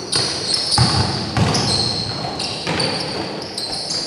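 Basketball game sounds on a gym floor: sneakers squeaking in short, high chirps again and again, and a basketball thudding on the floor a few times.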